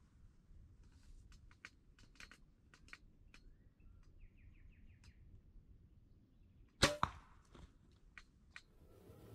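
A bow shot at a turkey: one loud, sharp double crack about seven seconds in as the string is released and the arrow flies. Faint scattered clicks come before it.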